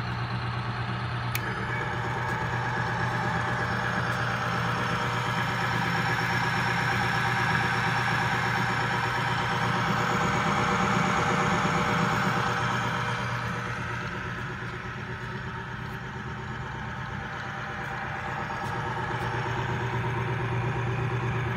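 Bearing lubricity test machine running: its electric motor hums steadily while the loaded bearing race gives a higher whine that eases for a few seconds after the middle and then rises again, with a light click about a second in. The race is turning under about 45 pounds of load on a film of gun oil and keeps running without stalling.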